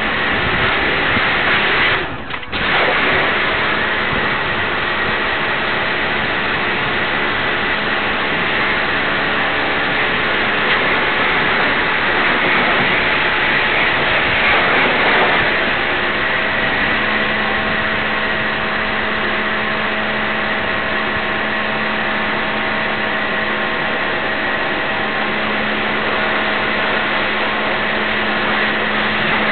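Pressure washer running, its jet hissing against the buggy's frame and wheels over a steady motor hum. The spray cuts out for a moment about two seconds in, then runs on.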